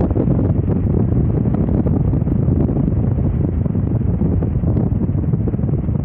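Wind rushing over the microphone of a camera riding in a moving car, a steady low rumble with the car's road noise under it.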